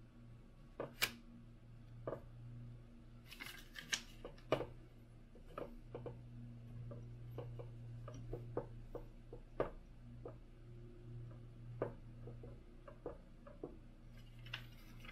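Hand-work on a 3D printer bed: tape backing paper rustling, and a scattered run of light clicks and taps as the adhesive magnetic sheet is pressed down, over a steady low hum.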